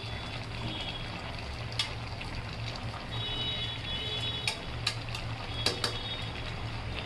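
A pan of bottle-gourd and fish curry simmering, with a spatula stirring through it and clicking against the metal pan several times, over a steady low hum.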